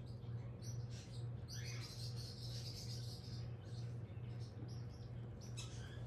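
Baby parrot chicks giving high, squeaky peeps and chirps, with a longer call about two seconds in and a sharp one near the end. A steady low hum runs underneath.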